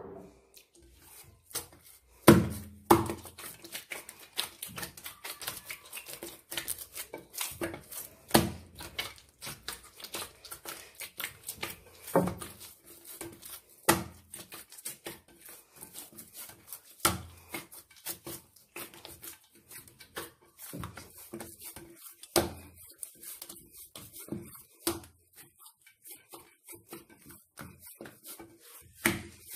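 Hands kneading msemen dough in a glazed earthenware dish: the dough is pressed, folded and pushed down, with many small clicks and taps and a heavier thump every few seconds.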